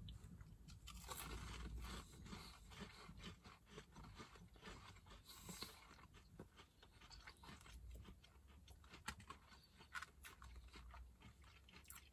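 Faint, irregular chewing of fried donut holes: small crunches and mouth clicks.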